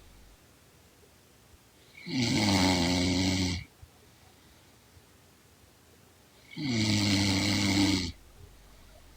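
A young woman snoring: two drawn-out snores about four and a half seconds apart, each about a second and a half long with a slightly falling pitch, and quiet between them.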